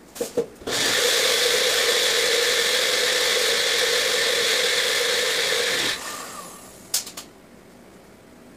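Small bullet-style blender's motor running steadily for about five seconds, grinding a chunk of parmesan cheese to a fine powder, then stopping. A few clicks come just before it starts and one comes shortly after it stops.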